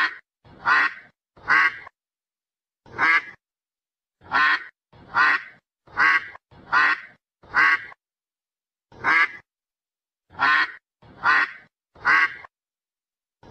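Duck quacks, about a dozen single loud quacks one after another, mostly under a second apart with a few longer pauses. There is dead silence between the quacks.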